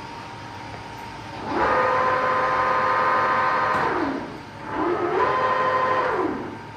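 TOS SN-71B lathe headstock spinning up: its pitched gear noise rises quickly, holds steady for about two seconds, then falls away as the spindle slows. About half a second later it spins up again, holds briefly and runs down once more near the end.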